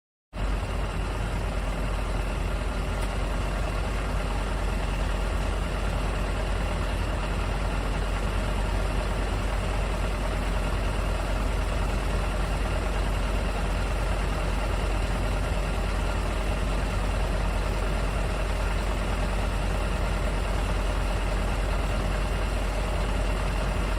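Truck engine idling steadily, a low, even rumble that cuts in abruptly just as the recording begins.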